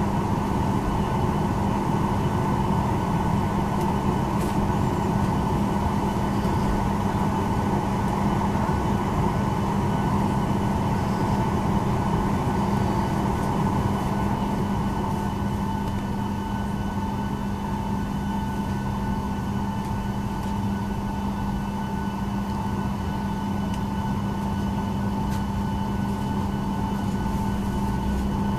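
Boeing 737-900ER cabin noise during pushback: a steady rush of air with constant whining tones from the aircraft's systems, slightly quieter from about halfway.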